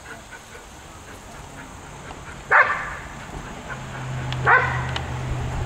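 A dog barks twice, two single loud barks about two seconds apart. A low steady hum sets in between them and keeps going.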